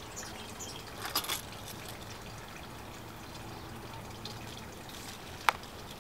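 Faint handling sounds of PVC plumbing parts as a glued ball valve is fitted onto a PVC pipe: a few soft clicks and scrapes a little after a second in and one sharp plastic click near the end, over a steady faint hiss.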